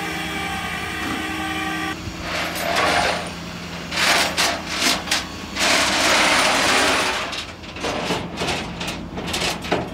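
Flatbed tow truck at work: a steady pitched hum for about two seconds, then loud rushing, hissing noise that comes and goes in uneven bursts.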